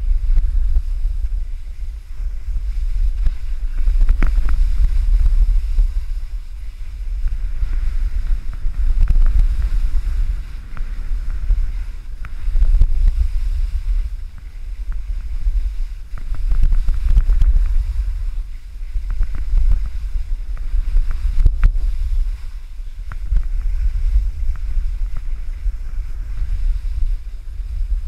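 Wind from downhill speed buffeting a GoPro camera's microphone: a heavy rumble that swells and fades every few seconds, with the hiss and scrape of skis on packed snow.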